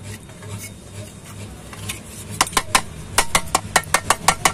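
A quick run of sharp plastic clicks and taps, about six a second, starting a little past halfway, from a photocopier cooling fan that has been taken out and is being handled. The fan is clogged with hardened toner that makes it turn stiffly. A low steady hum runs underneath.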